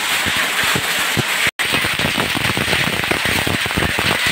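Heavy rain mixed with small hailstones pelting wet paved ground: a steady hiss with a dense, irregular patter of sharp clicks, which grows thicker after a brief dropout about a second and a half in.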